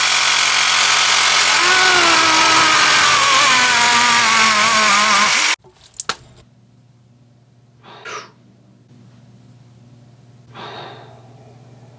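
A loud motor or power tool running, its pitch wavering and sagging, then cutting off abruptly about five and a half seconds in. After it a low hum remains, with two short, soft sounds.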